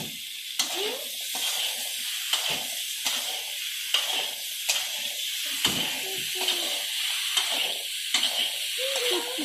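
Potatoes and dried fish frying in oil in a metal karai, with a steady sizzle. A metal spatula stirs them, scraping and clicking against the pan about once a second.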